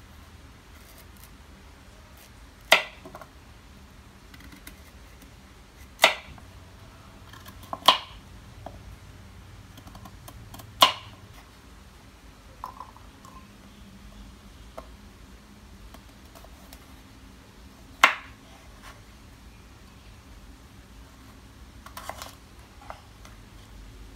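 Kitchen knife chopping through carrot onto a bamboo cutting board: five sharp chops a few seconds apart, with a few quieter knocks of the knife near the end.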